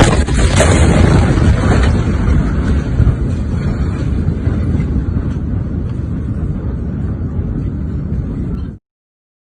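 Deep, loud rumbling roar of a large explosion, loudest at first and slowly dying away over about eight seconds before cutting off abruptly.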